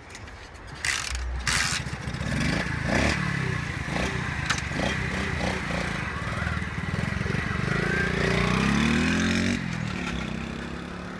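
Small Mustang moped engine starting about a second in, then revved up and down a few times. It climbs steadily in pitch as the moped pulls away, and drops back near the end.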